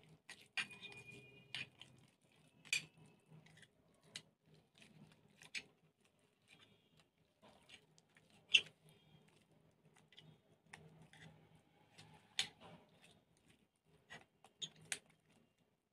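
Faint, scattered crackles and clicks of crunchy slime and plastic piping bags being squeezed and handled, a few sharper pops among them.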